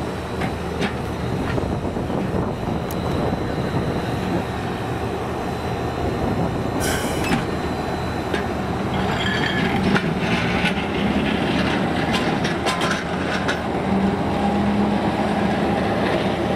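Gomaco-built heritage streetcar pulling away along its street track, wheels clicking over rail joints and switchwork over a steady rumble. A faint thin wheel squeal runs for a few seconds in the first half.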